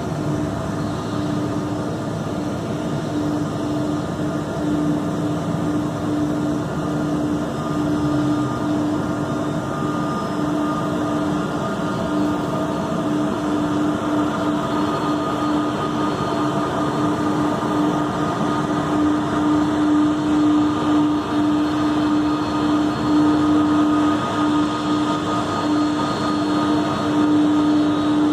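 Pratt & Whitney PW4000 jet engines of an Airbus A330-223 airliner running at low power: a steady whine over a rushing hiss, growing slowly louder.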